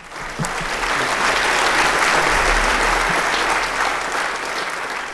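Audience applauding, building up in the first second and slowly dying down toward the end.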